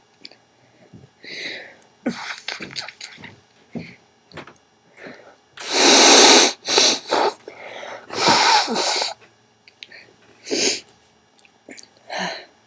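A woman blowing her nose wetly into a cloth handkerchief: several long, forceful blows. The loudest comes about six seconds in, another near the middle lasts about a second, and a short one comes near the end, with quieter breaths between.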